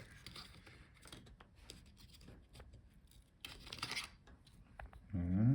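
Faint scraping and a few light clicks of small laptop parts being handled as the Wi-Fi card bracket is taken out, with a longer scratchy rub about three and a half seconds in.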